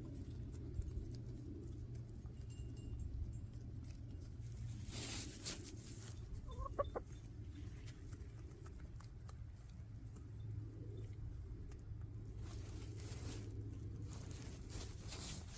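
Backyard hens clucking softly, with one short, clearer call about seven seconds in, over a steady low rumble.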